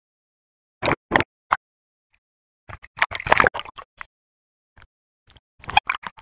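Water splashing and bubbling around an underwater camera as it goes below the surface, in short bursts with silence between; the busiest stretch is in the middle.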